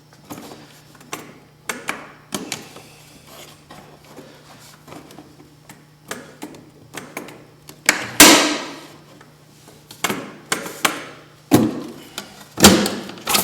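Scattered clicks and knocks as a snowmobile's clutch cover is unfastened and worked off, with a few louder clunks in the second half, the loudest a little after the middle.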